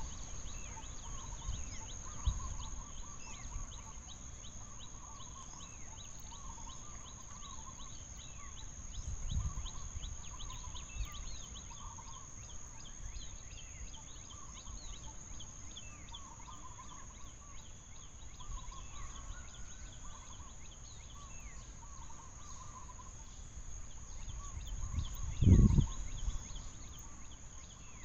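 Outdoor ambience with a steady high-pitched drone, many short chirps and repeated warbling animal calls, with a low thump near the end.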